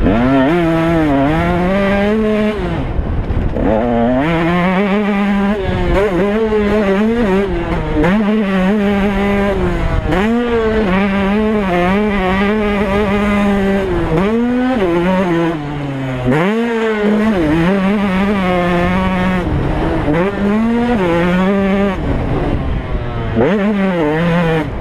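Two-stroke 125 cc KTM motocross bike engine being ridden hard, its pitch climbing under throttle and dropping sharply at gear changes and throttle chops, over and over. It eases off briefly twice, about three seconds in and again near the middle.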